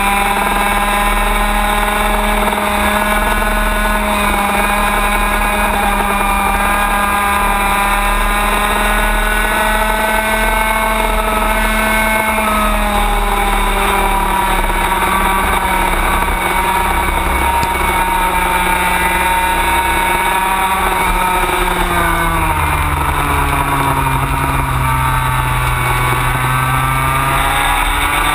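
Racing kart engine running at high revs, heard from on board the kart while following other karts. The pitch holds steady for most of the run, drops for several seconds about three quarters of the way through as the kart slows, then climbs again near the end.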